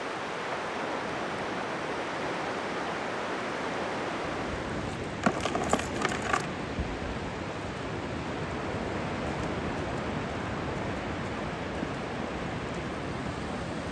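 Steady wash of ocean surf breaking on a beach. About five seconds in comes a short cluster of sharp clicks and knocks.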